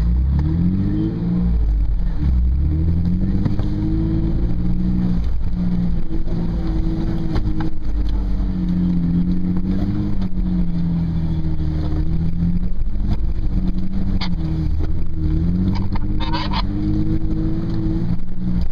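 Toyota FJ Cruiser's 4.0-litre V6 engine pulling the truck along a dirt trail, heard from inside the cabin. It revs up in the first second, then its pitch rises and falls gently with the throttle.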